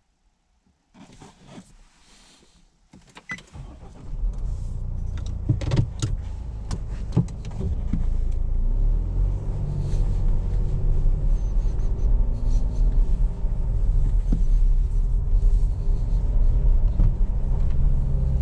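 A few clicks and knocks over near quiet, then about four seconds in a steady low rumble comes in and grows louder: the Nissan Navara PRO-4X Warrior's 2.3-litre twin-turbo four-cylinder diesel running as the ute gets underway, heard from inside the cabin.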